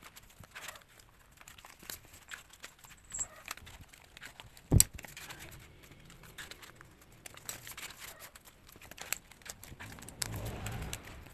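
Plastic and paper packaging crinkling and rustling as it is handled, with scattered light clicks and one sharp knock a little under five seconds in.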